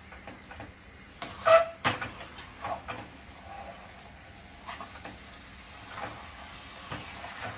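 Metal spatula scraping and knocking against a stainless steel kadai as chicken pieces in thick masala are stirred and turned. The scrapes and knocks come at irregular intervals, the loudest about two seconds in.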